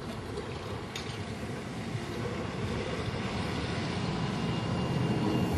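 Electric streetcar running along snow-covered rails, its rumble growing steadily louder as it approaches and passes close by.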